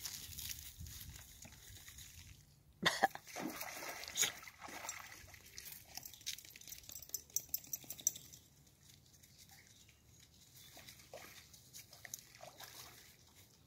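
A dog wading and splashing through a shallow, rippling river, with the water trickling. A couple of sharp, loud bursts come about three seconds in, followed by scattered smaller splashes for a few seconds.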